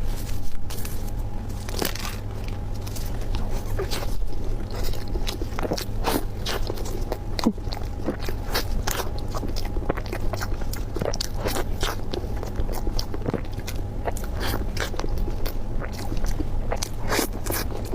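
Close-miked crunchy biting and chewing of a custard-filled snack roll: many quick, irregular crackles over a steady low hum.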